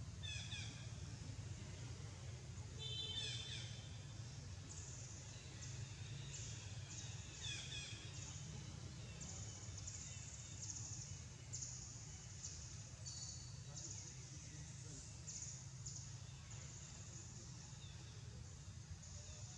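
Quiet forest ambience: short high calls falling in pitch, from birds, come a few times, while high insect buzzing pulses in bursts about once a second, over a steady low rumble.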